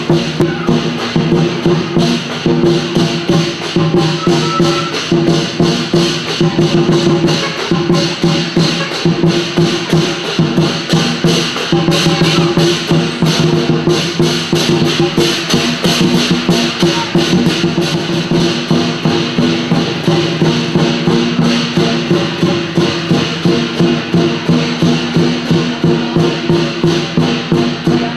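Lion dance percussion: a drum and clashing cymbals beat a fast, steady rhythm, several strikes a second, over a sustained ringing metallic tone.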